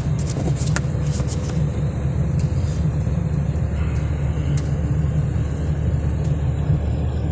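Steady low rumble of a car driving, heard from inside its cabin.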